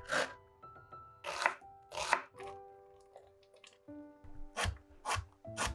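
Knife chopping on a cutting board: about six separate, unevenly spaced cuts, over background music.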